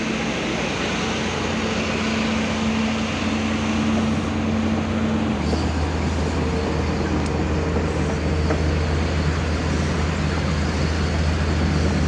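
Heavy diesel engines of excavators running steadily as the machines move along, with the engine note dropping to a deeper, stronger hum about five seconds in.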